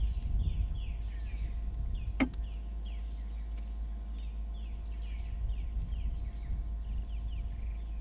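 Outdoor bush ambience: short, high falling chirps repeat a few times a second, with one sharp falling call about two seconds in, over a low rumble.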